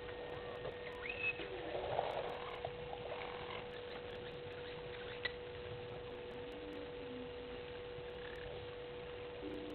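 Outdoor bush ambience: a steady hum under a background hiss, with a few short chirping calls, a brief louder patch about two seconds in and a single click near the middle.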